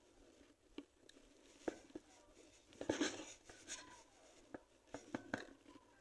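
Faint clicks and scratching from a fishing rod and reel being handled, with a brief rustling burst about three seconds in.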